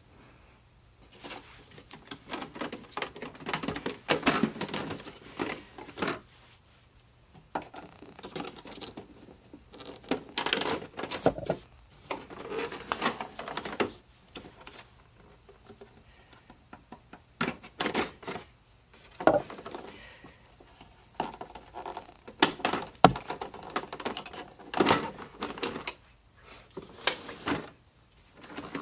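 Plastic housing and parts of a Sebo Airbelt C3.1 canister vacuum being handled and taken apart by hand: irregular clicks, taps and rattles with short pauses between them.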